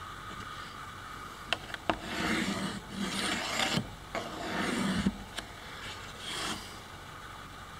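A steel ruler and pencil worked over a plywood sheet: two sharp taps about a second and a half in, then several short scraping strokes of under a second each as the ruler is slid and pencil marks are drawn.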